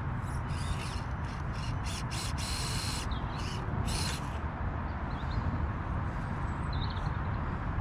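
Wind rumbling on the microphone, with short bursts of hissing rustle in the first half and a couple of faint bird chirps later on.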